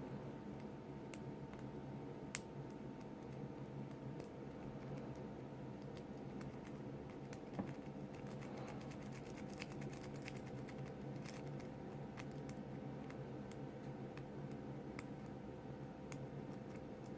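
Faint metallic clicks of a lock pick working the pins of a brass padlock, scattered and spaced out at first, then a quick run of clicks in the middle. A steady low hum runs underneath.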